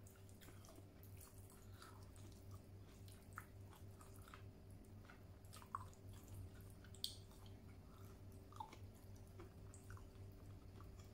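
Faint close-up mouth sounds of a person chewing soft food, rice and cooked sweet potato leaves, with scattered wet smacks and clicks; two sharper clicks come around six and seven seconds in. A low steady hum runs underneath.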